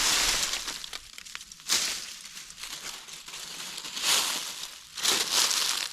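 Bush honeysuckle shrubs crackling and crunching in four or five loud bursts as they are broken down and pulled out of the ground by hand and foot.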